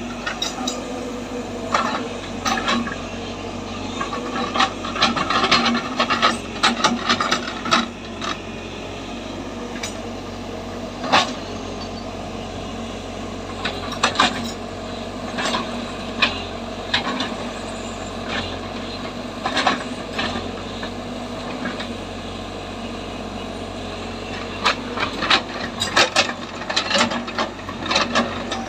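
Earthmoving machine's engine running steadily under irregular clanks, knocks and scraping, in clusters.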